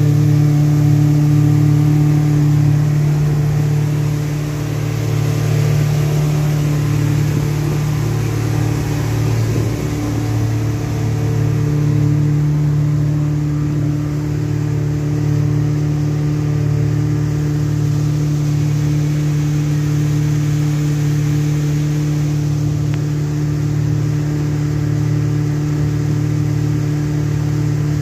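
Yamaha 242 jet boat's engines running steadily under way, a loud, even drone.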